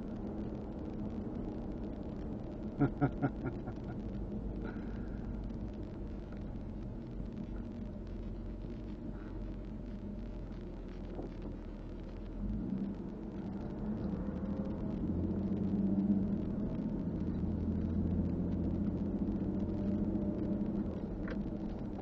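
Car engine and road noise heard from inside the cabin while driving, a steady low rumble. A quick run of four short clicks comes about three seconds in, and the engine note grows louder over the last third.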